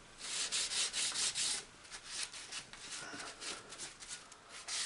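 Rag wiping over an oily cast-iron shaper casting: a run of quick rubbing strokes for about a second and a half, then lighter, fainter strokes.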